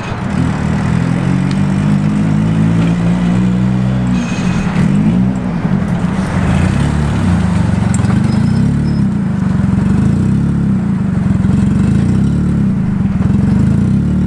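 Nissan 300ZX engine running at low speed as the car rolls slowly past close by. The pitch shifts as it changes speed about four to six seconds in, then it settles into a steady low running.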